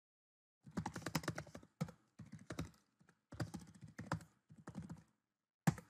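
Computer keyboard typing in several quick bursts of keystrokes, followed near the end by a single louder keystroke.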